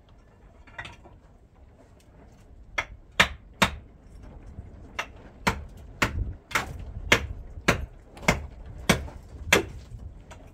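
About a dozen sharp knocks in a steady rhythm, roughly two a second, starting about three seconds in: a hand tool striking at the shallow basin of mortar while working it.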